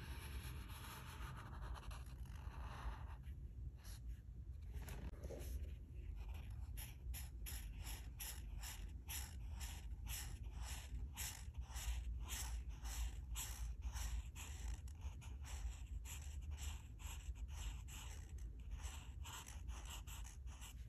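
Alcohol marker tip scratching back and forth across paper in short, even strokes, about two a second, as an area is filled in, over a steady low hum.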